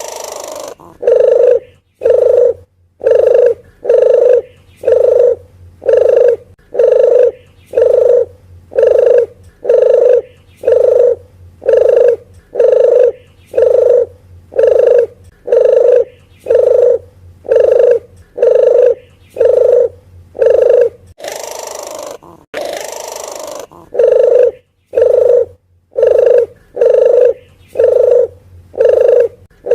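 Recorded lure call of a puter geni dove played back: one short cooing call about once a second, over and over, broken by a brief noisy rush about 21 seconds in.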